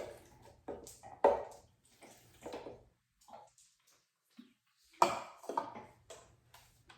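Kitchen handling noises: scattered knocks and clinks of containers and dishes being moved and set down. There is a quiet stretch around the middle and a sharp knock about five seconds in.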